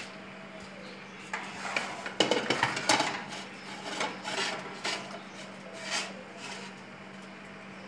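Metal pizza pans scraping and clattering on an oven's wire rack as they are slid about by hand, loudest a couple of seconds in and dying away with a few last knocks, over a steady low hum.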